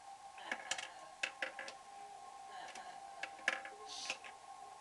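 Large plastic toy nuts and bolts clicking and knocking together irregularly as they are handled and twisted apart, with the sharpest click about three and a half seconds in.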